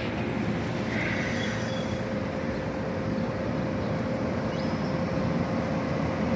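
Steady vehicle noise: an even low rumble with a faint constant tone running through it.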